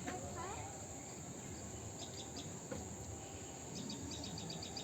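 Insects chirping: a steady high-pitched hum with runs of rapid, evenly spaced chirps, strongest near the end. A short rising call sounds near the start.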